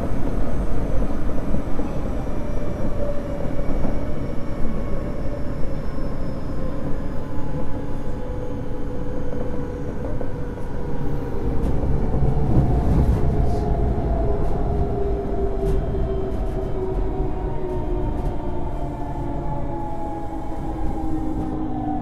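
Osaka Metro 23 series subway car running, heard from inside the car: a steady rumble of wheels and tunnel noise with the traction motors' whine slowly falling in pitch as the train slows.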